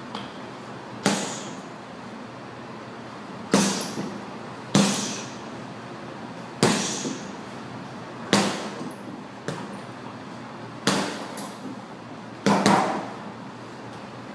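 Gloved punches landing on a Life Fitness heavy bag: about eight single heavy thuds at an uneven pace, one every one to two and a half seconds, each trailing off briefly after the hit.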